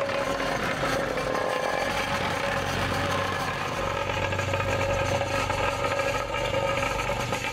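Weber CR 2 reversible plate compactor's engine running steadily at idle, an even mechanical drone with no load on it.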